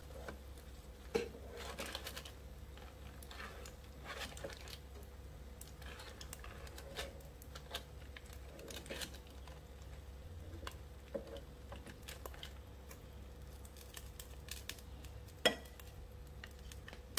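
Tongs clicking and scraping against aluminium foil and the air fryer basket while salmon fillets are turned, with the foil crinkling, over a steady low hum. A sharper knock comes about 15 seconds in.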